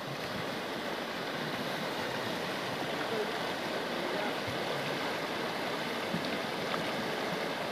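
Shallow rocky river flowing over stones, a steady rushing of water.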